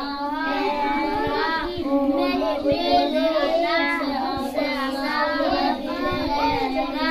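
Several young children reading aloud from picture books at the same time, their high voices overlapping without a pause.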